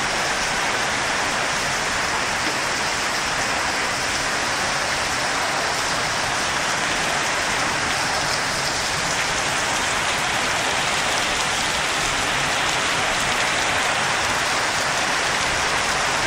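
Heavy downpour of rain mixed with hail hitting paved ground, a steady, dense hiss.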